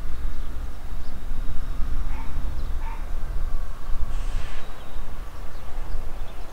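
Wind buffeting the microphone as a steady, uneven low rumble. Over it an animal gives two short calls about two and three seconds in, then a harsher call around four seconds.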